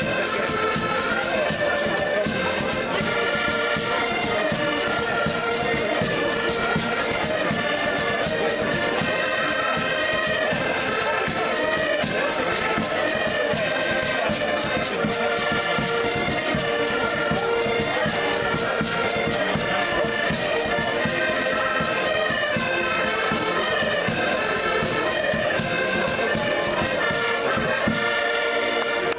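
An ensemble of button accordions plays a lively folk tune together, with many held reed chords over a steady beat. The music cuts off at the very end.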